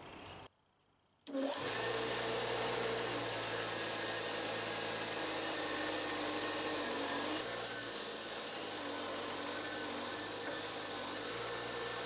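Bench grinder with a wire wheel running steadily, its bristles brushing the steel of a vintage Collins splitting axe head, with the motor's hum underneath. It starts abruptly about a second in and gets slightly quieter about halfway.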